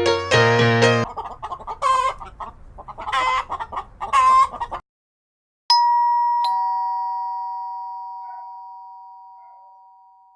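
A keyboard's last notes, then a chicken clucking and calling in several bursts for about four seconds. After a short gap, a two-tone ding-dong chime strikes a higher note and then a lower one, both ringing on and slowly fading.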